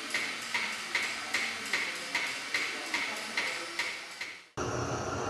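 Light, evenly spaced taps, about two and a half a second, each ringing briefly. They stop abruptly about four and a half seconds in, giving way to a steady hum.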